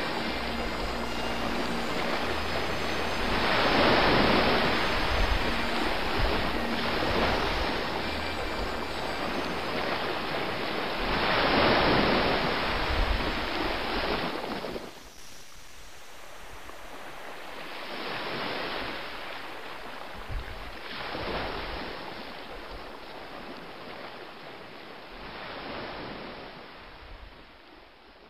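Sea waves washing in slow swells every few seconds, louder in the first half, quieter after about fifteen seconds, and fading out near the end.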